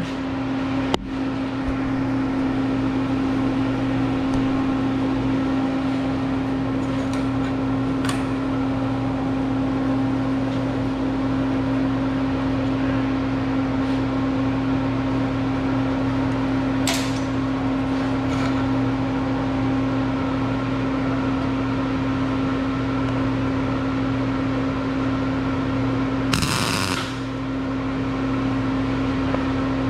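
Steady electrical hum with fan-like noise from running shop equipment, with a sharp click about a second in. Near the end comes a short hissing, crackling burst lasting under a second, during which the hum briefly dips.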